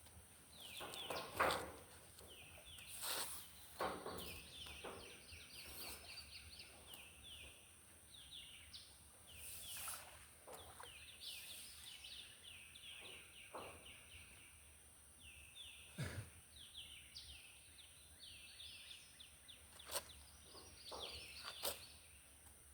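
A bird calling over and over outdoors: short, high, downward-sliding notes repeated in quick runs. A few scattered knocks and rustles sound in between.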